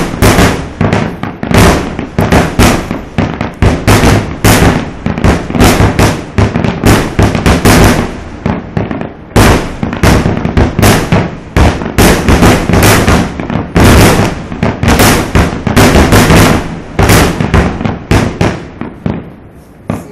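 Aerial fireworks shells bursting in rapid succession, several loud bangs a second in a dense finale barrage. The bursts stop abruptly at the end.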